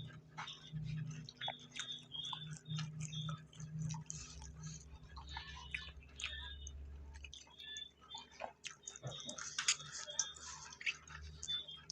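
A person eating close to the microphone, with wet chewing and mouth clicks. Many short, irregular clicks and ticks run through it.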